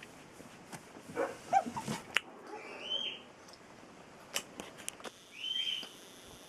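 Young wolfdog puppies squeaking and whimpering: a cluster of short, wavering whimpers about a second in, then two high squeals that rise and fall, with a few sharp clicks between them.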